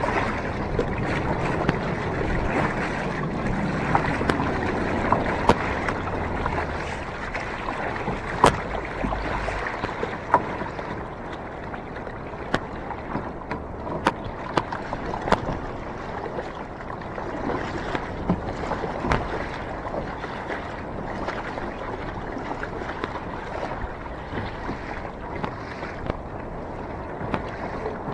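Water washing and lapping around a sit-on-top fishing kayak at sea, louder for the first ten seconds or so, with irregular sharp knocks and splashes against the hull throughout.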